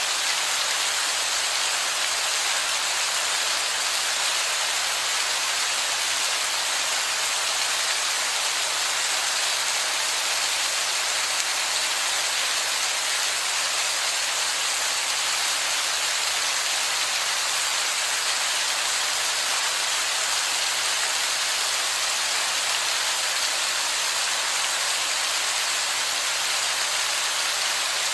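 Heavy rain pouring onto a wet rock: a dense, steady hiss of splashing water that does not let up.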